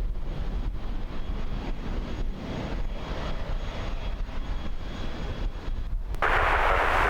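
Airliner jet engines rumbling steadily. A brief burst of hiss comes about six seconds in.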